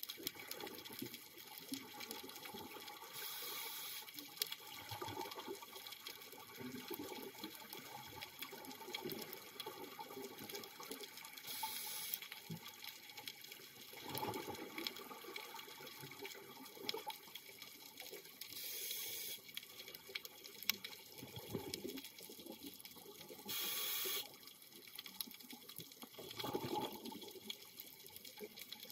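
Underwater sound of scuba breathing: a short hiss from the regulator on each inhale, four times about seven seconds apart, each followed a couple of seconds later by a rumble of exhaled bubbles, over a steady underwater crackle.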